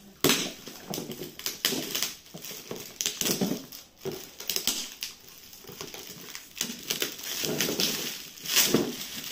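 Gold metallic foil gift wrap being torn open and crinkled by hand, in irregular crackling rips. There is a sharp loud rip just after the start and another near the end.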